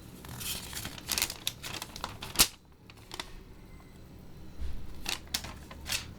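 Rustling and scraping of paper booklets and cardboard packaging as the contents of a router box are handled, with one sharp knock about two and a half seconds in.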